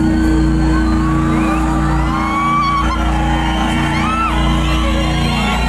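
Loud sound-system music over a stage PA, a pulsing bass beat with a held low drone that cuts out near the end. Rising-and-falling whoops and whistles from the crowd ride over it.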